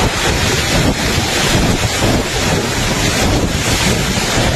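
Typhoon wind and driving rain, a loud steady rush with wind buffeting the microphone.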